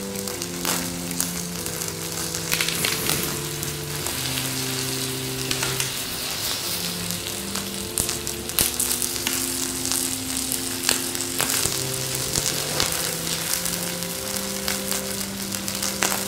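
Burning plastic toy fire truck crackling and sizzling as it melts in the flames, with sharp pops now and then. A soft melody of held notes plays underneath.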